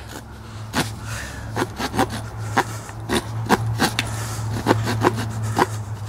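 The small saw blade of a cheap 8-in-1 multi-tool being worked back and forth across a 1-inch square strip of wood, in short scraping strokes about three a second. The blade makes little headway, and the owner judges the saw no good.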